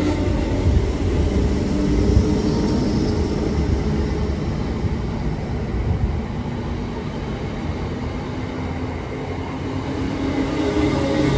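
Pair of Class 319 electric multiple units pulling out of a station and passing close by: a steady low rumble of wheels and running gear, easing slightly in the middle, with a low electric hum coming up again near the end.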